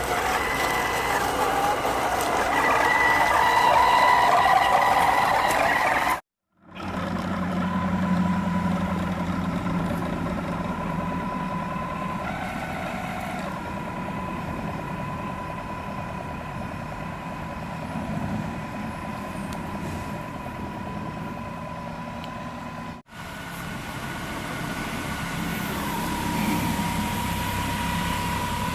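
Traction Hobby Four King 1/8 scale RC crawler driving, its electric motor and gear drive giving a steady high whine over a rough rumble from the wheels. The sound drops out briefly about six seconds in and again about five seconds before the end.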